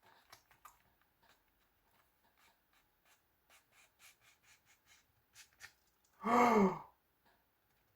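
Faint, scattered light clicks from a plastic Blu-ray case being handled, then a short voiced sound, like a sigh or a hum, about six seconds in.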